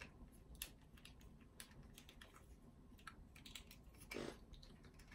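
Near silence broken by a few faint, scattered clicks of a plastic action figure being handled and its joints worked, with a brief rustle about four seconds in.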